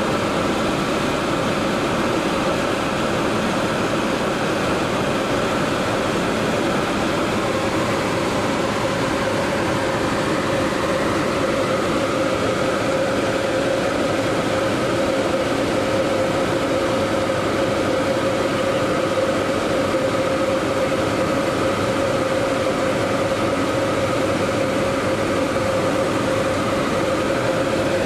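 Cabin noise of a Cessna 150 in flight: the Continental O-200 four-cylinder engine and propeller drone steadily with a constant hum, over airflow noise.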